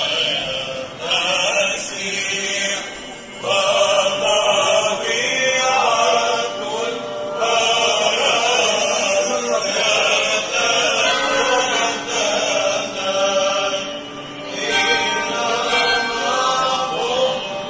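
A group of chanters singing a liturgical church chant in long phrases, with a brief break about three seconds in and a low note held underneath during the second half.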